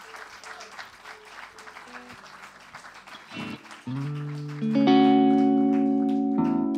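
Audience applause thinning out. Then, about three and a half seconds in, a semi-hollow electric guitar starts playing: a few chords struck and left ringing, getting louder with the third chord.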